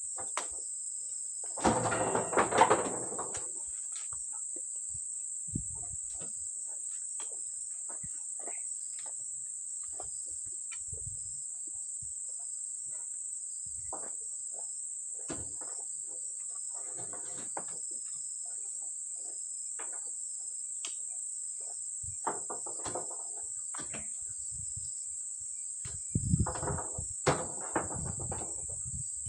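Insects buzzing in one steady high-pitched drone, with scattered knocks and rustling thuds as oil palm fruit bunches are pitched up onto a truck's heaped load, the loudest about two seconds in and again near the end.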